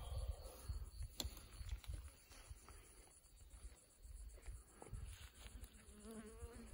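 Faint low rumble on the microphone with a few light clicks. Near the end, a feral goat gives a short, wavering bleat.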